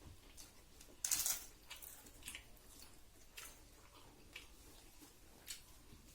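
A person eating: a string of short crunches and clicks, the loudest about a second in, then smaller ones about once a second.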